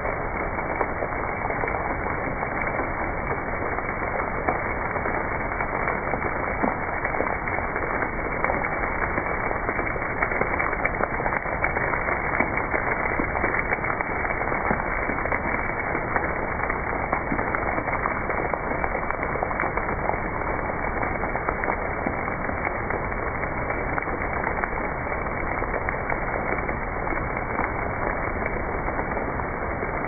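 Water falling as drips and spray from a rock overhang onto shale: a steady rushing hiss full of small crackling splashes, muffled, with no high end.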